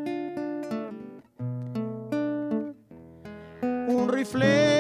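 Nylon-string classical guitar played fingerstyle: single plucked notes and short chords, each ringing and fading. Near the end a man's singing voice comes in over it on a held, wavering note.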